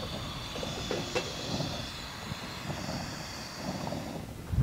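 Steady low rumble of wind on the microphone, with a faint clink about a second in as a steel pot is set onto a burner on a small gas cylinder.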